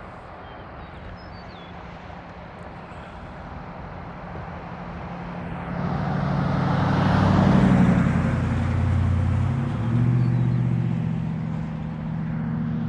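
A full-size road vehicle driving past: engine and tyre noise swell to a peak about seven or eight seconds in and then ease off, and a second rise in engine sound follows about ten seconds in.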